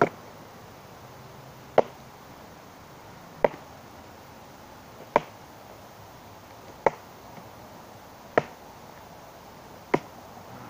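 Seven sharp whacks, one every second and a half to two seconds: a stick being struck over and over with a hand-held weapon to snap it in half.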